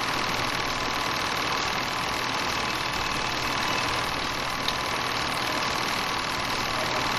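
8mm film projector running: a steady mechanical whir and clatter at an even level, with one short click near the middle.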